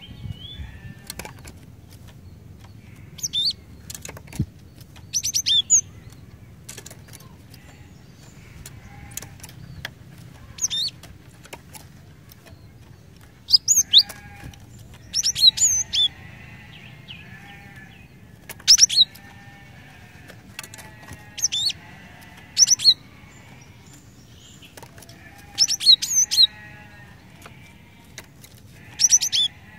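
Cinereous tit (gelatik batu) calling: short bursts of sharp, high chirps repeated every two to three seconds, with softer, lower twittering between them.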